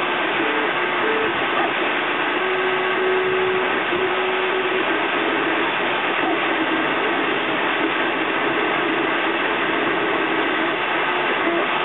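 3D printer at work: its stepper motors whine in tones that step up and down in pitch as the print head moves, over the steady hiss of its cooling fan.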